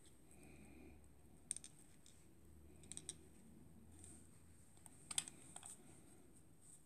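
Faint, light clicks and taps from hands handling a plastic Barbie doll: single clicks about one and a half and three seconds in, and a short cluster of clicks about five seconds in.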